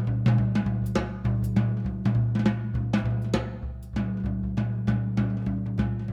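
Background music with a steady drum beat, several hits a second, over a sustained bass line.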